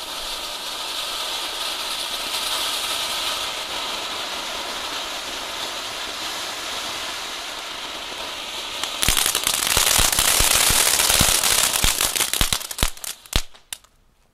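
Small category F1 firework volcanoes (ground fountains) hissing steadily as they spray sparks. About nine seconds in, a louder crackling of rapid pops takes over, thins out and stops near the end.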